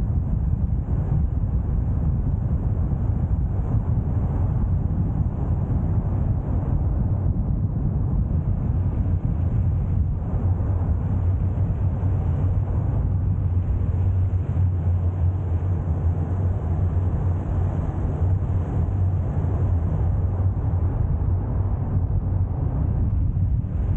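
Steady road and engine noise inside a moving car's cabin, a low drone that grows a little stronger through the second half.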